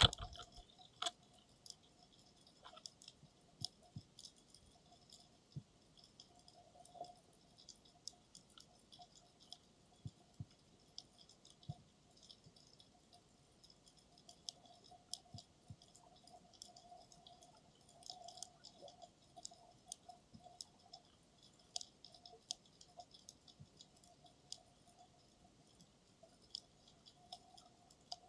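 Faint underwater ambience heard through a camera's waterproof dive housing: scattered sharp clicks and crackles, with a faint hum that swells and fades. One loud knock right at the start.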